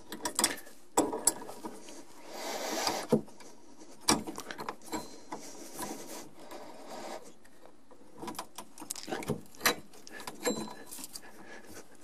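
Wrench on the brass compression nut of a dishwasher supply hose at an under-sink angle stop valve, working the nut loose: scattered metallic clicks and knocks, with a longer scraping rub about two seconds in.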